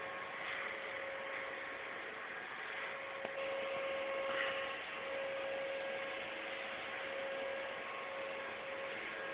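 A steady hum with a constant mid-pitched tone over a background hiss.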